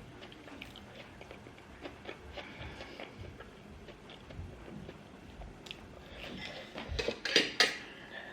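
Eating sounds: soft chewing and small mouth clicks, then a few loud clinks of a utensil against a plate about seven seconds in.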